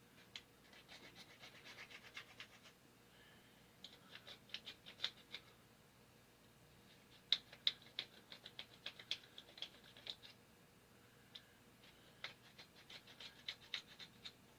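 Faint hand-filing of the inside of a 1/2-inch PVC fitting, carving away its internal stop. The quick rasping strokes come in several runs with short pauses between them.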